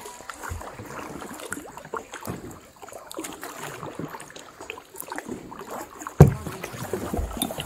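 Kayak paddle strokes: the blades dipping and splashing in the water, with scattered drips and small knocks, and one louder thump about six seconds in.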